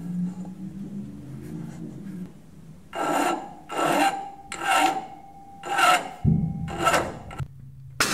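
Hacksaw cutting through the steel hydraulic hard line of a 1950s Ford tractor, a few seconds in, with about five rasping back-and-forth strokes, a little over one a second.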